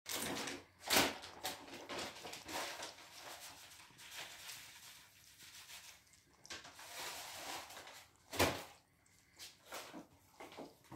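Two cats lapping milk from a shallow ceramic plate: a run of irregular wet licking and splashing clicks, with two louder smacks about a second in and near the end. The Siamese laps clumsily, flicking milk out of the plate as it drinks.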